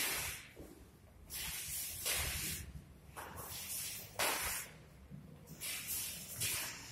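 Short hissing swishes, about one a second, from a group of Xingyi practitioners stepping and punching through crushing-fist (beng quan) drills: feet sliding on a tiled floor, clothes and forceful breaths with each strike.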